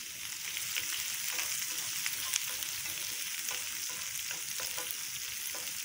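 Chopped onions sizzling in hot oil with the tempering spices in a frying pan, stirred with a wooden spatula that scrapes and taps against the pan now and then.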